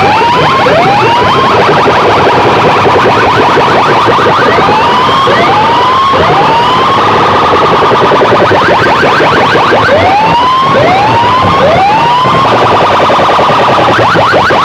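Siren-style sound effect blasted at full volume through a large DJ sound-box system: rising whoops in groups of three, the group repeating about every five seconds, over a dense, fast-pulsing buzz.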